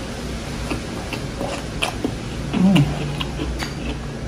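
A person chewing food close to the microphone, with small wet mouth clicks scattered through, and a brief hummed "mm" about two and a half seconds in. A steady low hum runs underneath.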